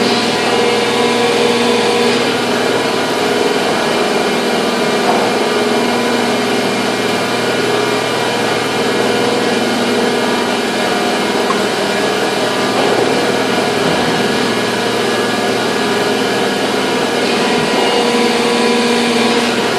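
Steady, loud running of factory machinery: a continuous mechanical drone with several steady tones and no change in level.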